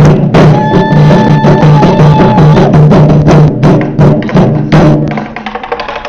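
Taiko drum ensemble playing loud, fast, driving rhythmic strikes. A long high held tone sounds over the drums from about half a second to two and a half seconds in, and the drumming eases a little near the end.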